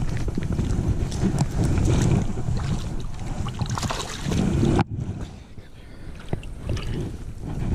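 Stream water splashing and sloshing as a hooked trout is scooped into a landing net in shallow water, with wind rumbling on the microphone. The splashing drops off abruptly about five seconds in, leaving quieter sloshing.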